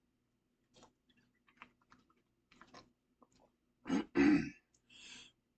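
Faint wet mouth clicks, then a few short gulps about four seconds in as a man swallows air to build up his next burp.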